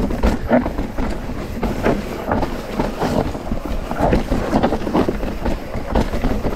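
Mountain bike clattering over a rough trail: rapid irregular knocks and rattles of the frame and parts over a steady low rumble.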